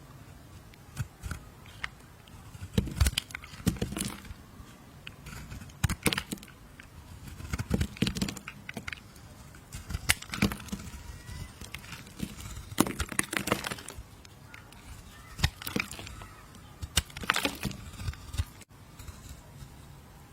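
A knife cutting through bar soap: crisp cracking and crumbling strokes in irregular clusters every second or two.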